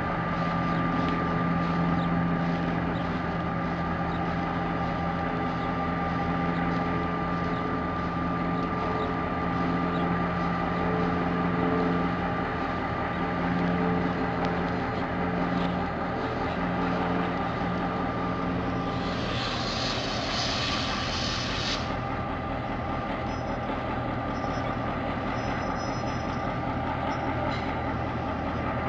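The two-stroke EMD 645 V8 diesel engine of a DBR-class locomotive running steadily. About nineteen seconds in, a loud hiss lasts for about three seconds, and after it the engine note drops back and changes.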